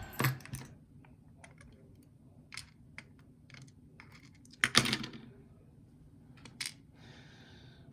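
Scattered light metallic clicks and ticks of small lock parts being handled and set down as a lock cylinder is taken apart, with one louder knock near the middle.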